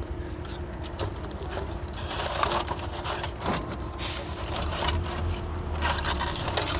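Scrap wood and thin splinters clattering and knocking against each other as they are dropped into a ceramic tandoor and shuffled into place by hand, with irregular scraping and rustling over a steady low hum.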